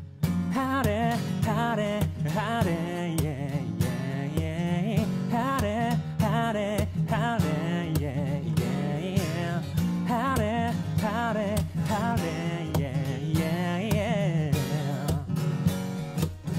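A singer whistling the wavering intro melody over guitar-led backing music. The whistle is weak and keeps slipping into voice.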